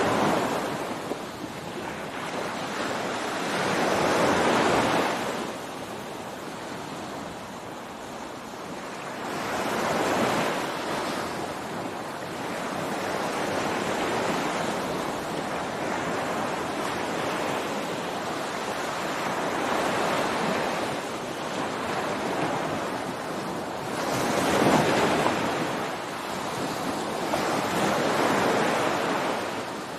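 Ocean surf breaking on a beach: a continuous wash of surf that swells with each breaking wave, about four or five times, loudest about 25 seconds in.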